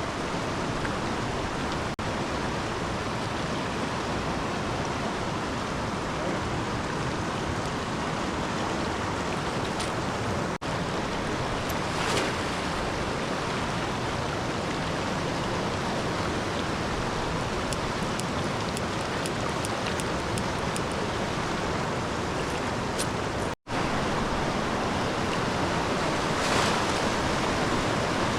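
Steady rush of flowing river water, broken twice by a brief dropout.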